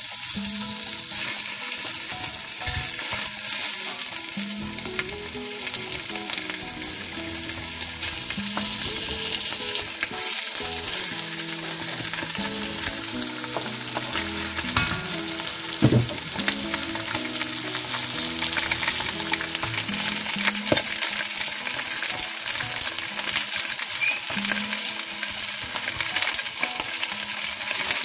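Raw chicken and pork pieces sizzling and spattering in hot oil in an enamelled pot as they are added and stirred. A few knocks sound through it, the loudest about halfway in.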